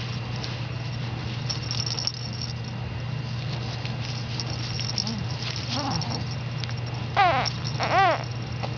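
A baby's short vocal sounds: two brief rise-and-fall coos near the end, with softer little sounds a couple of seconds before, over a steady low hum.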